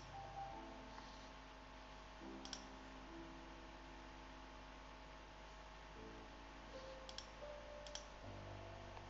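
Faint computer mouse clicks over a quiet hum: one near the start, one about two and a half seconds in, and three in quick succession around seven to eight seconds in. Faint held tones shift in the background.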